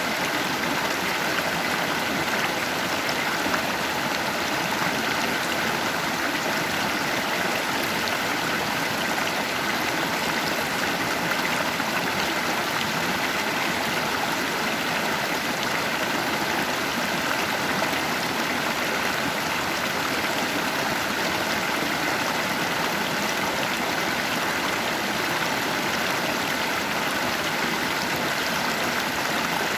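Stream of water running over rocks, a steady rushing and gurgling current.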